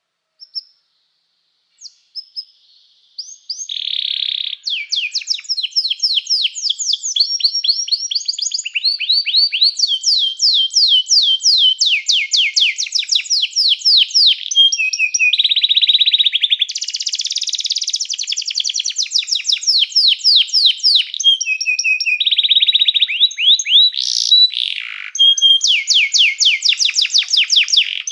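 Domestic canary singing: a couple of isolated chirps, then about three seconds in it breaks into continuous high-pitched song of rapid trills and rolls, each a fast run of repeated notes, switching to a new pattern every second or two.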